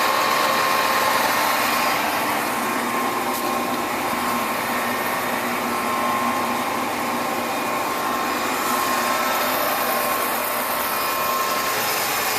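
Clausing-Colchester 15-inch gap-bed lathe running steadily: a constant mechanical hum with a steady whine.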